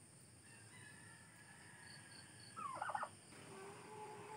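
Quiet background with a short, rapid warbling animal call about two and a half seconds in, followed by a longer, steadier, lower call near the end.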